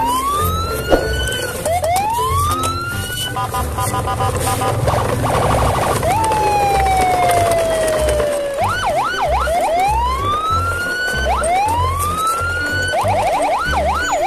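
Electronic siren sounds: repeated rising whoops, quick up-and-down warbles and one long falling tone, over a steady low beat.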